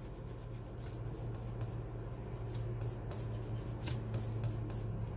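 Dermatograph pencil scribbled back and forth on paper: a soft, repeated scratching of wax lead on paper, wearing one side of the tip flat to sharpen it. A steady low hum runs underneath.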